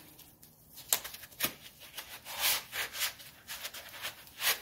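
Slit foam pipe insulation being pressed and worked onto an air-conditioning line by gloved hands. It makes short, irregular rubbing and scuffing strokes with a few sharp ticks, the loudest scuffs about two and a half seconds in and near the end.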